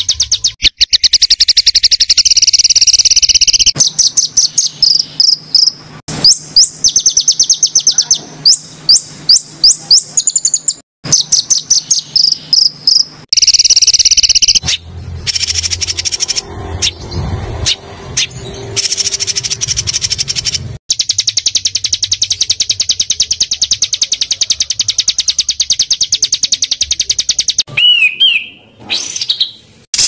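Small songbirds singing fast, dense trills and rapid runs of sharp repeated chirps, high-pitched and loud. The song is spliced together, with abrupt cuts between the passages.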